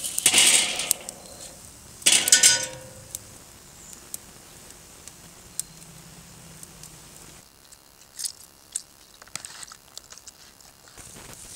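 Steel cooking grate set down onto a kettle grill with a rattling clatter, then a cast iron skillet clanks down onto the grate about two seconds in with a short metallic ring. Later there are only a few light clicks and taps.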